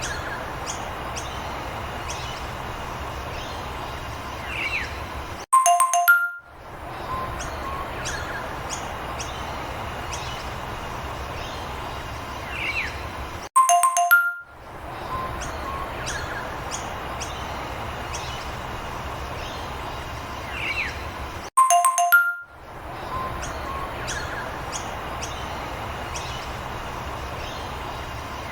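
A steady outdoor ambience with birds chirping now and then, broken three times, about every eight seconds, by a short bright chime of a few tones before the same ambience loops again.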